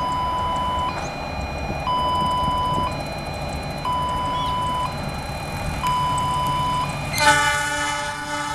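An electronic warning alarm alternating between two steady tones, switching about once a second, over the low rumble of an approaching container train. About seven seconds in, the diesel locomotive's multi-tone horn blows a loud, held blast.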